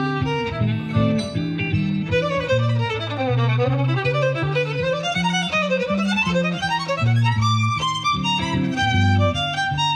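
Violin playing a blues melody, with fast runs that swoop down and back up in pitch, over a steady low bass line.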